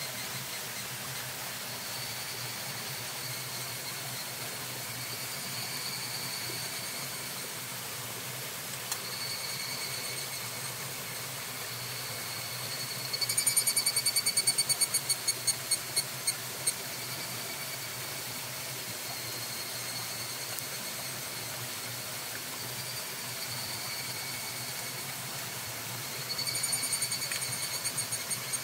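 Steady rushing of a mountain stream with a faint high whine over it. About 13 seconds in, and again near the end, a loud high call of rapid pulses slows into separate notes and fades.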